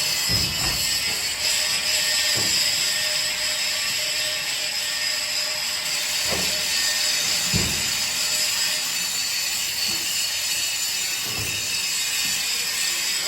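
A steady loud hiss of background noise, with a handful of short dull knocks spaced a few seconds apart as the ball valve's metal parts and tools are handled during disassembly.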